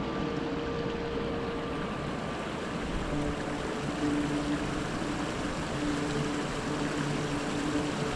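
Steady rushing hiss of a shallow mountain stream running under a stone footbridge, with soft held music notes underneath.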